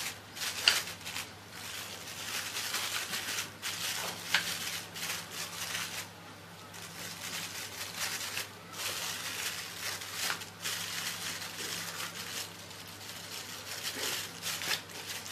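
A thin plastic bag crinkling and rustling as hands press minced chicken burger mixture into a bag-lined lid to shape a patty, with a couple of sharp ticks, over a faint steady hum.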